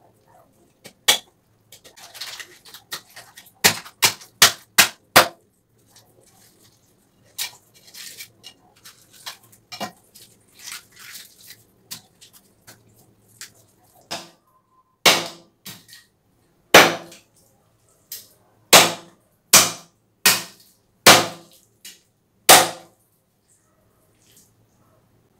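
A large kitchen knife chopping through a milkfish on a wooden log chopping block. There is a quick run of five sharp chops, then quieter cutting and scraping, then about seven loud chops spaced roughly a second apart.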